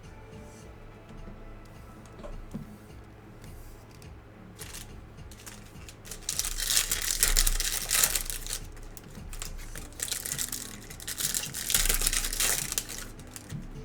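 Trading-card pack wrappers being torn open and crinkled by hand, in two loud bouts of crackling starting about six seconds in and again near the end.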